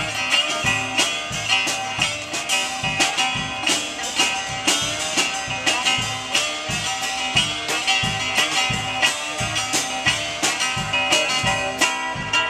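Live blues played on an amplified archtop guitar, strummed in a driving rhythm over a steady beat.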